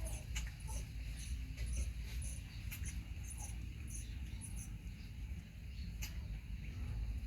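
Baby monkey giving short, high-pitched squeaks scattered through, over a low steady hum.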